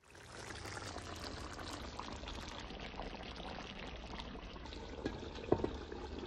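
Coconut curry shrimp simmering in a pan and rice boiling in a pot on the stove: a steady bubbling and crackle. A few light clinks come about five seconds in as the pan's glass lid is handled.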